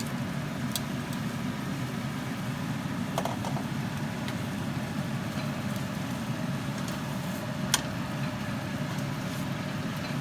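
Pork chops pan-frying on the stove: a steady low rumbling hiss, broken by a few sharp metallic clicks against the pan.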